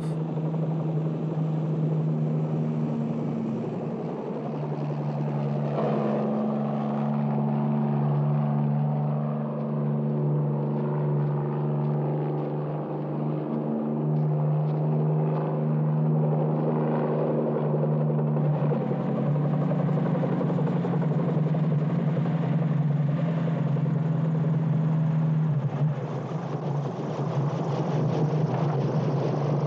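Propeller aircraft engine running, a steady low drone whose pitch shifts slightly a few times.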